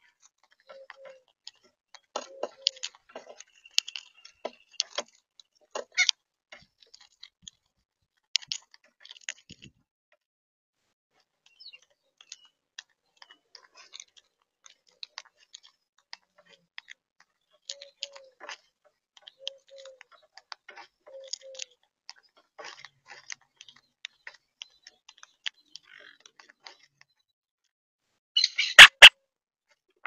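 Monk parakeets cracking seeds at a feeder: irregular sharp clicks and cracks of beaks on shells and seed, with a few short soft low notes. A much louder sharp knock-like burst comes near the end.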